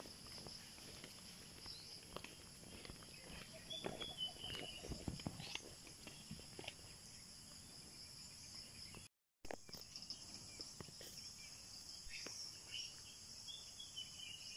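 Faint outdoor ambience dominated by a steady high-pitched insect drone, with scattered soft knocks and a few short chirps; the sound cuts out for a moment about nine seconds in.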